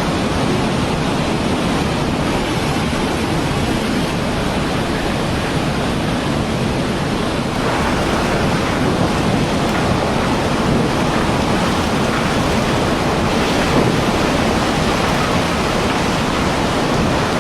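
Loud, steady rushing of floodwater, a continuous wash of water noise with no let-up.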